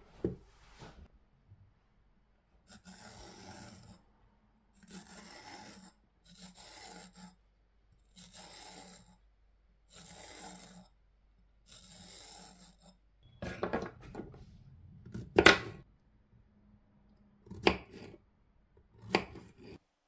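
Fork tines scraped lengthwise along the skin of a raw zucchini on a wooden cutting board, about six even strokes of roughly a second each. In the second half come several sharp knocks on the board, the loudest about two-thirds of the way in.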